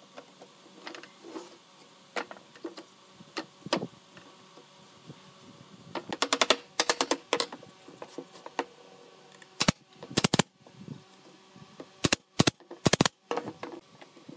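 Blue bar clamps being ratcheted and adjusted on a wooden frame: a quick run of clicks about six seconds in, then several sharp clacks and knocks around ten and twelve to thirteen seconds in.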